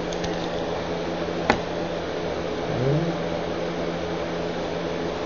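Steady mechanical hum in a small room, with one sharp click about a second and a half in and a short rising hum, like a voice, about three seconds in.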